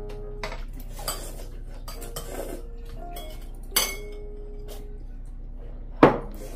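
Eating utensils clicking and clinking against dishes and the noodle container during a meal, a few scattered knocks with one sharp clink about six seconds in.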